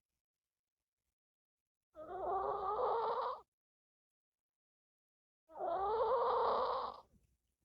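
An old dog snoring in her sleep: two long, wavering snores, the first about two seconds in and the second about halfway through.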